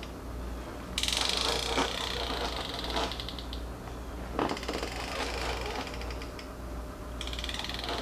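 Rapid mechanical clicking over the low, steady running of a 2020 Harley-Davidson Low Rider S's Milwaukee-Eight 114 V-twin. The clicking comes from a peeling sticker under the belt guard that the drive belt flicks as it passes, a harmless noise rather than a belt fault.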